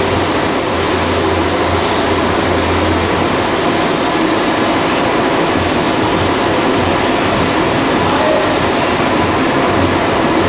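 Automated plastic-film production machine running: a loud, steady mechanical din with a low hum underneath.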